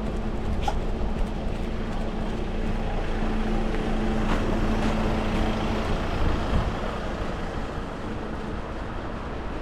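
A motor vehicle passing on a city street, its engine hum and tyre noise swelling through the middle and then easing away over steady traffic noise.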